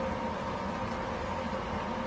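Steady mechanical hum and hiss from running kitchen appliances, with a faint high steady whine over it.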